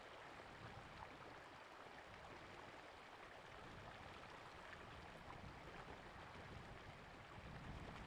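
Faint, steady rippling of shallow creek water flowing over and around boulders.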